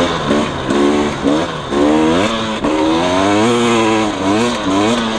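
Single-cylinder two-stroke engine of a KTM 300 EXC dirt bike revving up and down again and again under throttle as it is ridden through soft sand.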